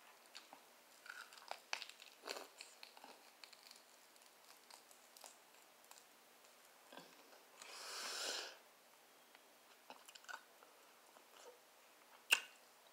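Chewing and biting on fried barbecue ribs: soft wet mouth clicks and light crunches. A louder hissing sound lasts about a second around eight seconds in, and there is a sharp click near the end.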